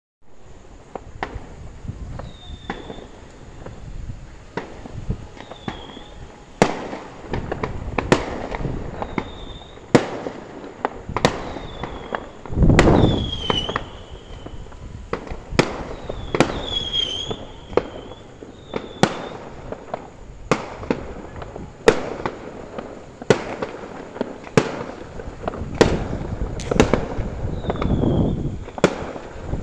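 Aerial fireworks going off: sharp bangs about once a second, irregularly spaced, with a louder, longer rumbling boom about 13 seconds in. Short, high whistling tones recur between the bangs.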